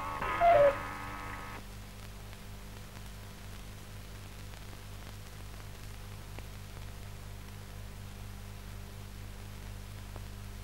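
Cuckoo clock giving one two-note cuckoo call, high then lower, in the first second or so. After it there is only the steady hiss and hum of an old film soundtrack.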